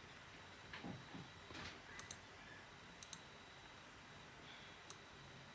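Computer mouse clicking: a double click about two seconds in, another about three seconds in, and a single click near the end. A soft, low sound comes about a second in. Under it all is a faint, steady hiss.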